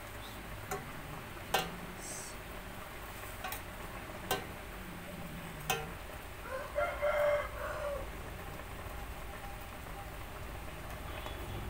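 A rooster crows once, about six seconds in: a single pitched call lasting over a second. Around it come a few sharp clicks over a steady background hiss from the pot of fish soup boiling.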